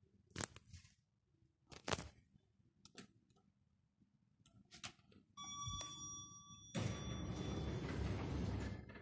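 A few sharp clicks, then a KONE elevator's arrival chime: a single ringing tone lasting about two seconds. The landing doors then slide open with a loud steady noise that fades near the end.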